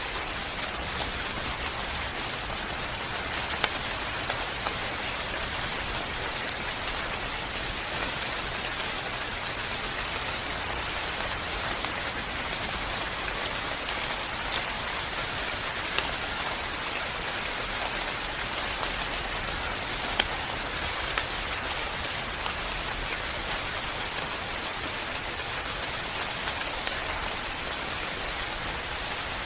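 Steady rain falling on a surface, an even hiss with scattered louder drops standing out now and then.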